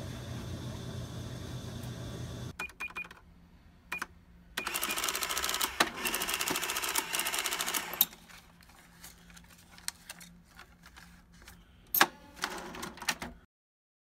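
A steady machine hum stops about two and a half seconds in. After a few clicks, an electronic cash register prints a receipt with a rapid buzzing chatter for about three seconds. Then coins and bills are handled in the open cash drawer, with a sharp clack near the end.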